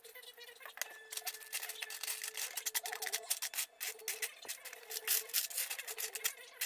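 Small metal screws and washers clicking and rattling in a plastic tray as a hand rummages through them: a dense run of quick clicks that starts about a second in.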